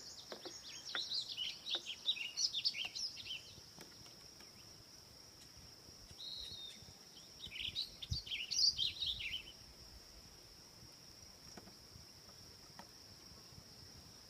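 A songbird singing quick, high chirping phrases twice: in the first three seconds and again about eight seconds in. Under it runs a steady high-pitched insect sound.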